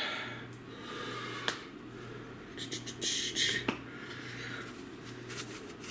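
Plastic spice bottles handled over a bowl: a few single sharp clicks of caps and bottles, and short quick rattles as seasoning is shaken out, over a low steady hum.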